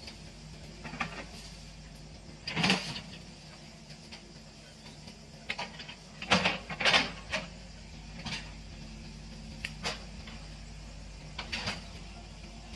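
Hitachi EX120 hydraulic excavator working in brush: its diesel engine runs steadily, under a string of about eight sharp knocks and cracks. The loudest come a little before three seconds in and in a cluster around six to seven seconds.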